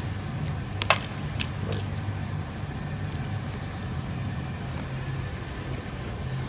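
A steady low hum with a few sharp clicks and taps from small hardware being handled, the loudest click about a second in.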